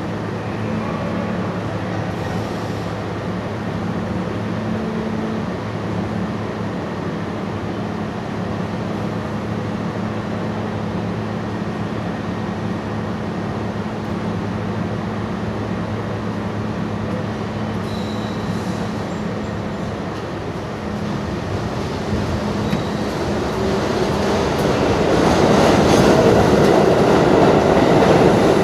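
R32 subway train standing at the platform with a steady electrical hum, then pulling out and picking up speed, the wheel and running noise growing louder over the last few seconds.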